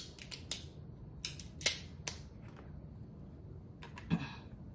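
Close-miked eating of king crab legs: a run of sharp cracks and clicks in the first two seconds, with a short crunch about four seconds in.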